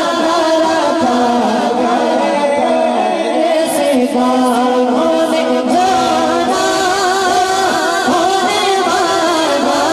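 A boy's solo voice singing a naat (devotional Urdu poem) into a handheld microphone, in long held notes with wavering ornaments.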